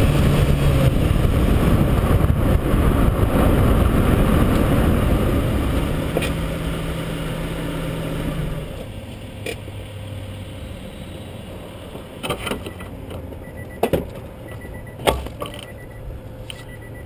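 Honda car driving, heard from a camera mounted low on the outside of the body by the wheel: engine, tyre and wind noise that fades and drops off about halfway through as the car eases off and slows. A few sharp knocks follow in the quieter second half.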